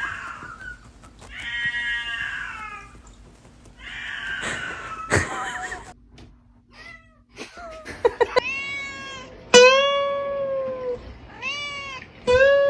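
Domestic cats meowing: a series of separate drawn-out meows, several of them arching up and then down in pitch, with sudden breaks between them.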